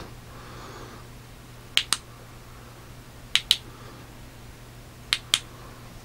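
Tail clicky switch of a March C8 flashlight being clicked three times, each one a sharp double click (press and release), spaced about a second and a half apart, switching the light off and on.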